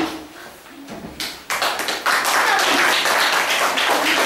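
Audience clapping, beginning about a second and a half in and continuing as a dense, even patter of claps.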